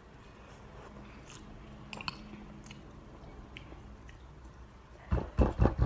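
Faint chewing and mouth clicks of someone eating spicy noodles. About five seconds in come several loud, quick puffs of breath, panting at the burn of the spice.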